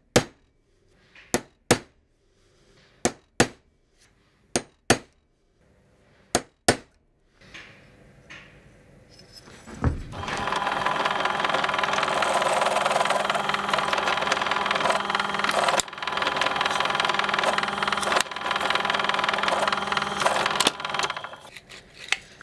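Sharp metal taps of a hammer on a centre punch marking hole positions in a thin aluminium plate, mostly in pairs, for about seven seconds. Then a bench pillar drill starts about ten seconds in and runs steadily for about eleven seconds while drilling the plate, stopping near the end.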